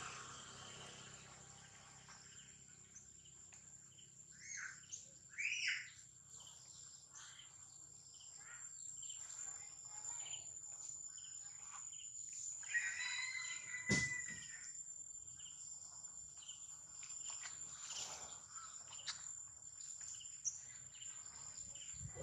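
Steady high-pitched insect drone, with a few short chirping calls around five seconds in, a longer held call a little later, and a sharp click about two-thirds of the way through.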